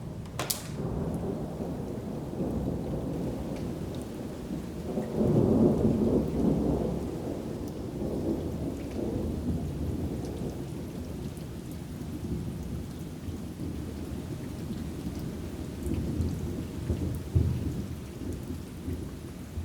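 Thunder rumbling long and low over steady heavy rain, swelling loudest about five to seven seconds in, with a brief sharper peak near the end.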